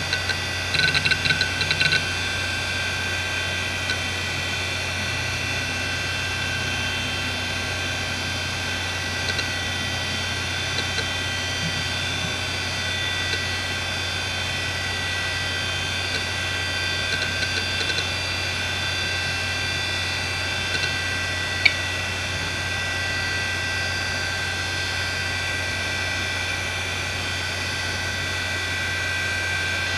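IBM Deskstar 3 DAQA-33240 3.5-inch IDE hard drive (1996, three platters, six heads) spinning with a steady whine and hum, its heads giving a few scattered seek clicks, one louder click about two-thirds through.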